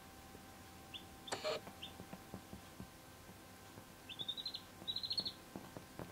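Week-old white bantam silkie chicks peeping: a couple of single short high peeps, a brief louder burst about a second and a half in, then two quick runs of rapid peeps about four seconds in. Faint soft ticks of beaks pecking at leather run underneath.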